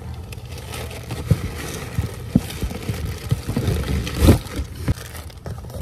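Irregular light knocks and clicks over a steady low hum, the strongest knock about four seconds in.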